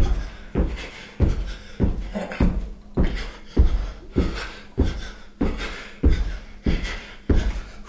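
Steady rhythmic thuds on a hard floor, one about every 0.6 seconds, each with a short echoing tail.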